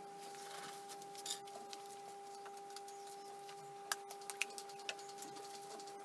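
Quiet workshop with a steady low hum, broken by a few light clicks and knocks as cut wood pieces and a glue bottle are handled and set down on a table saw's top, most of them about four to five seconds in.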